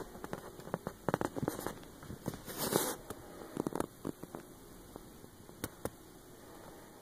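Scattered light clicks and crackles, thickest in the first four seconds, with a short rustle about three seconds in, over a faint steady hum.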